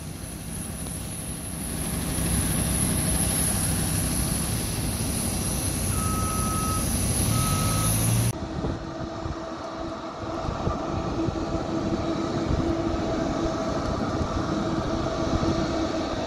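Airport apron sound beside a parked Airbus A350: a steady high whine over a low hum from the aircraft and its ground equipment, with two short beeps about six and seven and a half seconds in. About eight seconds in the sound cuts to a lower steady drone with a few held tones, the jet engines of an airliner taxiing at a distance.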